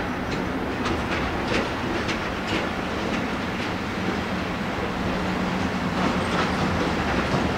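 EF64 electric locomotive rolling slowly over jointed track, its wheels clacking over the rail joints about twice a second, over a steady low hum. The clacks thin out after about four seconds.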